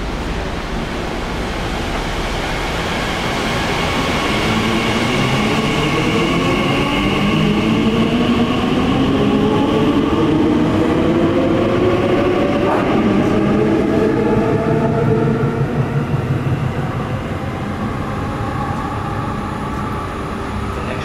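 A Class 345 Aventra electric train pulling out of the platform and accelerating away. Its traction motors whine in several tones that rise together in pitch while growing louder, then fade from about three-quarters of the way through as the train draws off.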